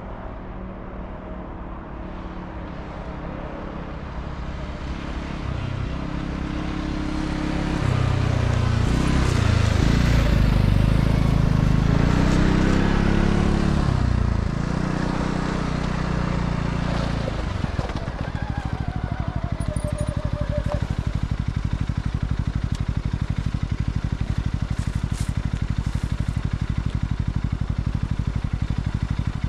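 Segway Snarler AT6 L ATV's 570 cc single-cylinder engine. It comes closer and runs past loudly at speed about ten seconds in, its pitch rising and falling. From about eighteen seconds in it idles steadily.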